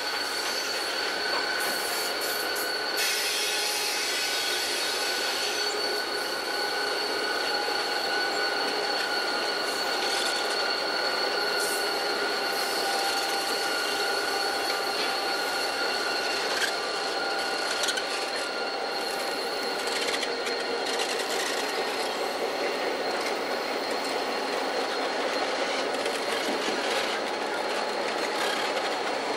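A consist of diesel road-switcher locomotives rolling slowly past on curved track, their wheel flanges squealing against the rail in several steady high tones over the running noise of the units.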